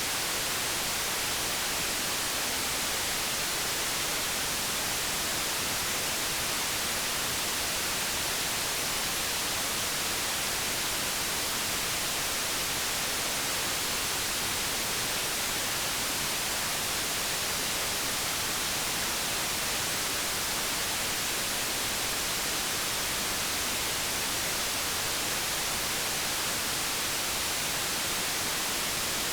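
Steady white noise: an even, unbroken hiss, heaviest in the treble, with no change in level.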